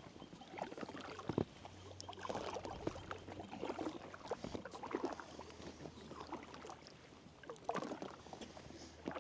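Kayak being paddled: irregular splashes of the paddle blades in the water, with a few sharp knocks.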